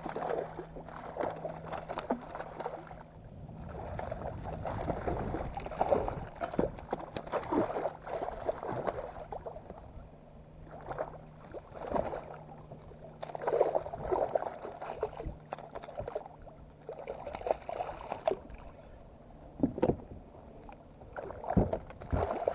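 A hooked ladyfish thrashing and jumping at the surface beside a kayak, water splashing in irregular bursts throughout, with water slapping against the kayak's hull.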